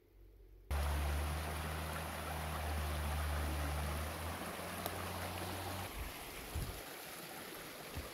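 Small forest stream running over rocks in a little cascade, starting abruptly about a second in. A steady low hum sits beneath the water for the first few seconds.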